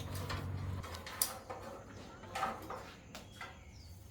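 A few light clinks and knocks, like metal parts or tools being handled, over a low background hum that stops about a second in.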